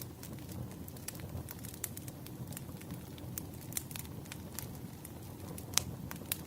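Campfire of burning wood: a steady low rumble of flames with frequent sharp crackles and pops, one louder pop near the end.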